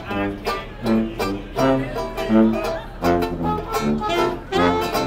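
A small live band playing an upbeat tune: plucked strings and a brass horn, in a quick run of separate notes.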